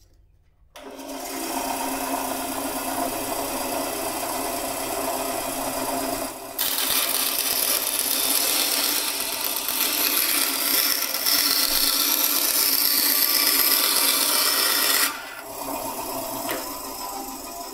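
Vevor 10-inch bandsaw with a half-horsepower motor switched on and running steadily. After about six seconds its blade rips a pine 1x6 board for about eight seconds, much louder and noisier while it cuts. It then drops back to the saw running free.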